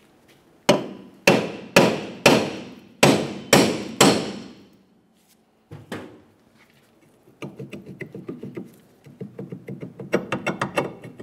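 A hammer strikes the rusted rear brake drum of a 2009 Honda Civic seven times in about three and a half seconds, each blow ringing metallically, to vibrate the seized drum loose from the hub. A single knock follows, then a quick run of light knocks and rattles as the drum is rocked back and forth by hand.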